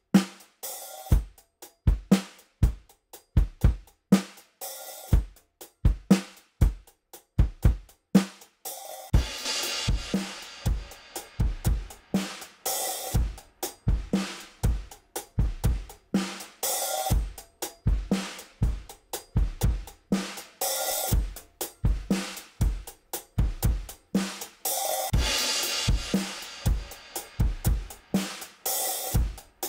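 Recorded drum kit playing a steady groove of kick, snare and hi-hat, heard as a drum bus through a WesAudio Beta76 (1176-style) compressor. About nine seconds in, cymbals join with a washy, sustained high end, and louder accents come back every few seconds.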